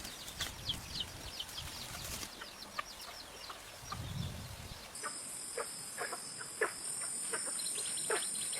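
Chickens clucking, with many quick high chirps that fall in pitch. About halfway through, a steady high insect buzz sets in suddenly.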